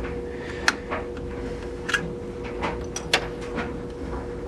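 Plastic and metal parts of an opened cordless-tool battery pack being handled and pulled off, giving several sharp clicks and snaps, the loudest about two-thirds of a second and about three seconds in, over a steady low background hum.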